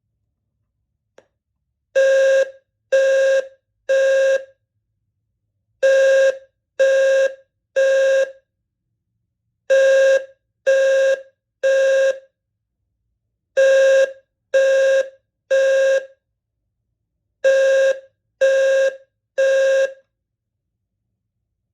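Eaton Wheelock ELFHN low-frequency fire alarm horn sounding the Temporal 3 evacuation pattern: five rounds of three half-second blasts, each round followed by a longer pause. Each blast is a buzzy low tone near 520 Hz with many overtones; a faint click comes about a second before the first round.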